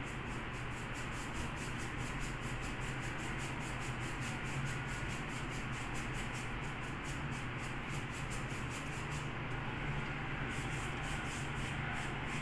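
A hand tool scraping against a wall in quick repeated strokes, with a short break about nine seconds in.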